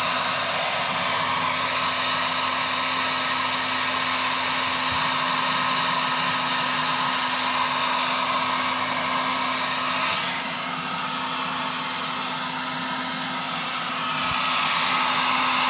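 Hair dryer blowing steadily, used to melt frost in a freezer. Its sound drops a little about ten seconds in and comes back up near the end.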